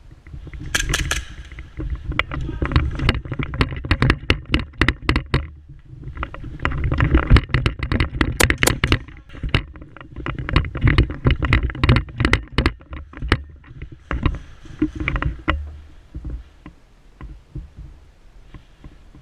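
Airsoft guns firing: many sharp shots in rapid irregular runs, thinning out after about 16 seconds, over a heavy low rumble of movement and handling.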